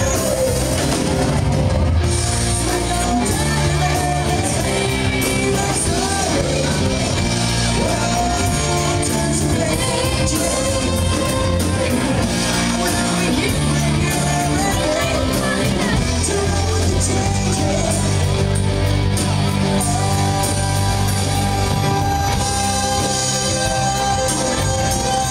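Live rock band playing: a male lead singer over electric guitars and drums, loud and continuous.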